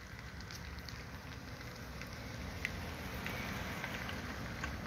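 Steady low outdoor rumble with light crackling, growing slightly louder, and two faint clicks, one a little past halfway and one near the end.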